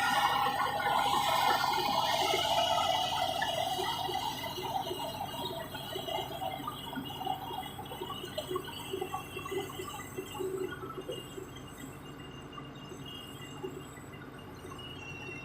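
Komatsu D70LE bulldozer running, growing fainter over the first several seconds, with many short irregular clinks and squeaks over the steady machine noise.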